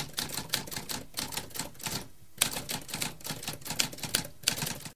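Typewriter keys clacking in a quick run of keystrokes, with a brief pause about two seconds in that ends on one loud strike before the typing resumes.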